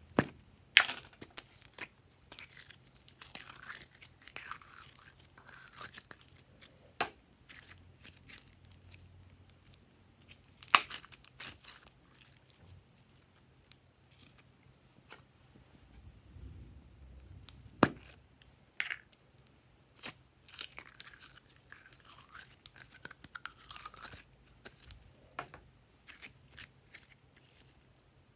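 Hands squeezing, kneading and stretching glossy glitter slime: sticky crackling and popping, with irregular sharp snaps and a few louder pops as the slime pulls apart and closes.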